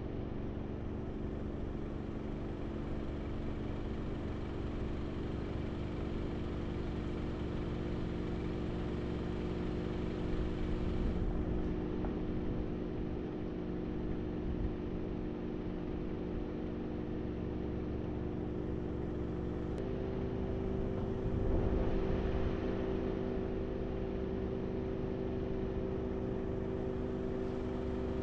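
Car engine hum and road noise heard from inside a moving car: a steady drone over a low rumble. About twenty seconds in, the hum steps up slightly in pitch.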